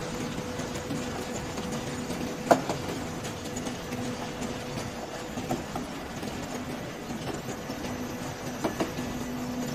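Steady hum and rattle of a french-fry line's frying machine running, its stainless mesh belt conveyor and motors going, with a few sharp clicks, the loudest about two and a half seconds in.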